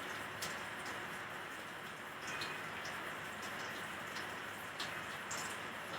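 Shrimp rangoons frying in hot oil: a steady sizzle with scattered crackles and pops.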